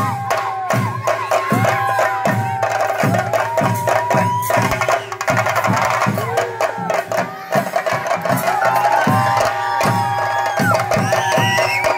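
Chenda drums of a theyyam ensemble playing a steady rhythm of about two or three heavy strokes a second, with a melody of long held, sliding notes over the top.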